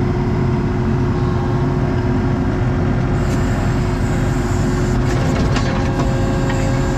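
ASV RT-40 compact track loader's diesel engine running steadily while the machine moves, heard from inside the operator's cab. A few light rattles come about five to six seconds in.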